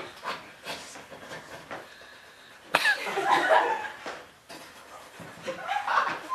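Scattered audience chuckling and light laughter, with a sudden sharp sound almost three seconds in.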